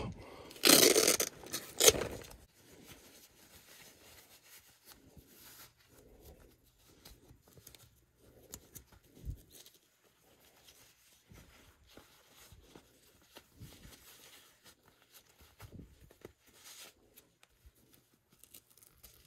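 Hands handling fishing gear and pulling on fabric fingerless fishing gloves: a loud, scratchy rush of noise lasting about a second and a half near the start, then faint rustling and small knocks.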